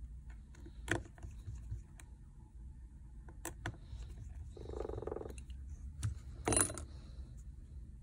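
Small clicks and light metallic clinks of a disassembled smartphone and small repair tools being handled, with a short hum about halfway through.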